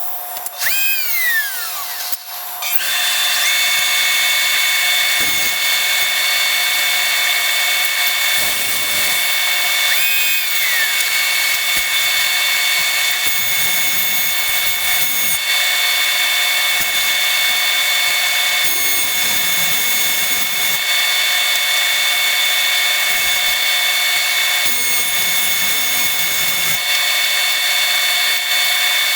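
Power-tool whine from woodworking, played twelve times faster than real time, so it comes out as a steady high-pitched whine. There are a few quick rises and falls in pitch, about a second in and again around ten seconds, as tools spin up and down.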